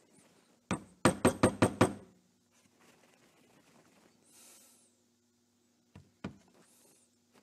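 Plastic epoxy squeeze bottle handled over an epoxy mixing board: one knock, then a quick run of about six sharp knocks within a second, and two more knocks near the end. Two short faint hisses come as the bottle is squeezed to dispense epoxy.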